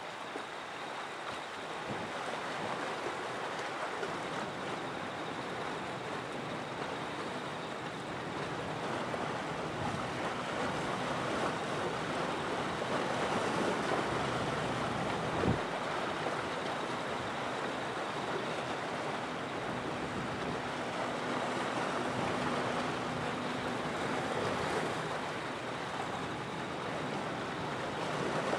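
Waves washing on the shore as a steady rushing that swells slightly, with one sharp click about fifteen seconds in.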